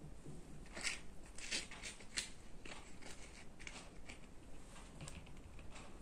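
Faint, scattered scrapes and light clicks of a metal spoon working soft avocado flesh into a glass bowl.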